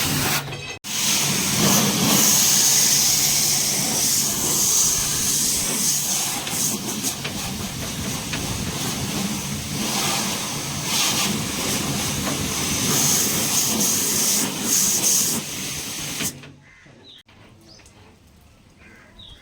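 High-pressure water jet washer spraying water in an AC water-wash service: a loud, steady hiss of spray over a low pump-motor hum. It stops briefly about a second in and cuts off about sixteen seconds in, leaving faint sounds.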